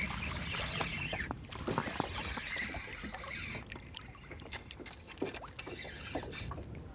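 Small pike splashing at the surface as it is reeled in through shallow, weedy water, with scattered short splashes. Wind rumbles on the microphone underneath.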